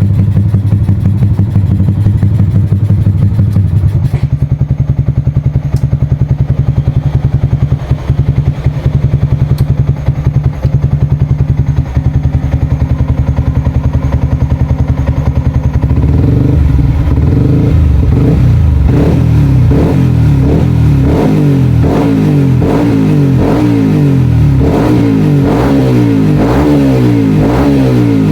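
Tuned four-stroke motorcycle engine running during a warm-up. Its idle drops to a lower, steady speed about four seconds in. In the second half it is revved again and again, the revs rising and falling about once a second.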